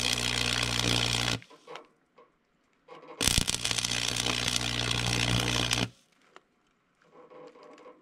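Stick welding on the sawmill's steel frame: the arc crackles with a steady buzz. It stops about a second and a half in, then strikes again for about three seconds.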